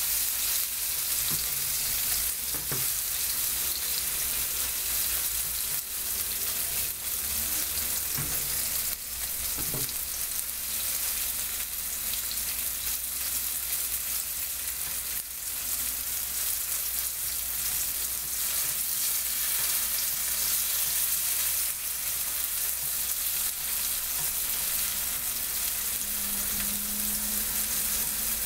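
Strips coated in red chili seasoning sizzling steadily in hot oil in a nonstick frying pan, with a few light clicks as wooden chopsticks turn them.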